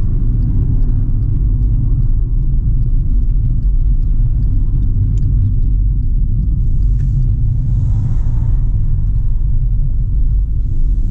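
Steady low rumble of a car being driven, heard from inside the cabin, with wind buffeting at a car window damaged in a break-in.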